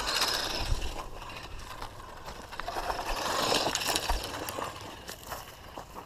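Electric RC truck driving over loose dirt and gravel: tyres scraping and crunching, with scattered small knocks. It is loudest at the start and again about three to four seconds in.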